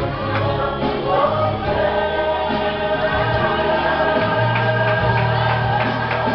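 Gospel music with group singing over a steady bass line and a regular beat.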